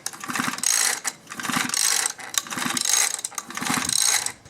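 Small two-stroke engine of a Mantis mini tiller turned over by quick, repeated pulls on its recoil starter cord, about one pull a second, with the rope whirring and the starter ratcheting; the engine does not fire. The spark plug is out and grounded for a spark check.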